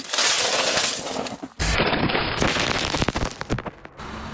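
A car tyre crushing things under its weight: loud crunching as plastic cups of candy-coated chocolates break, then, after a sudden change about a second and a half in, a dense run of sharp cracks and pops that thins out toward the end.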